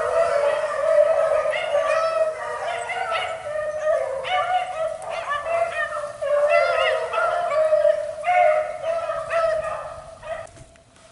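A pack of beagles baying together, many overlapping voices, as the hounds run a rabbit's scent trail. The cry fades away near the end as the pack moves off.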